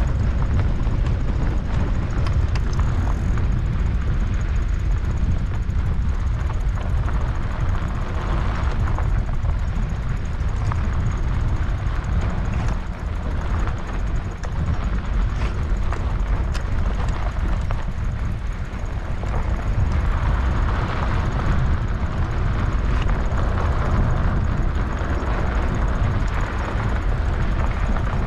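Wind buffeting the microphone and bike tyres rolling over a dirt road while riding: a steady low rumble with scattered small ticks.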